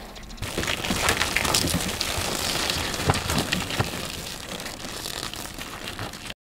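Hooves of crowded sheep and goats trampling and scuffling on frozen ground in a log pen: a dense crackle of many small knocks and crunches that starts about half a second in and cuts off suddenly near the end.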